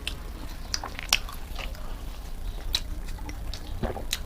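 Mukbang eating: chewing and wet mouth sounds with scattered light clicks, irregular and a few per second.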